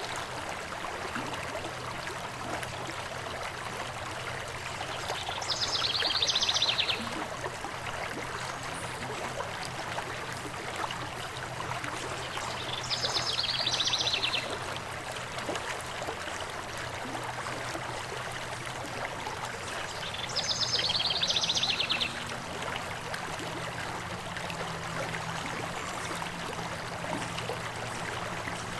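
Stream of water running steadily. A songbird sings a short, rapid trill three times, about seven seconds apart, louder than the water.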